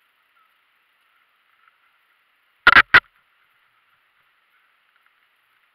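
Two short, loud knocks about a third of a second apart, near the middle; otherwise near silence with a faint hiss.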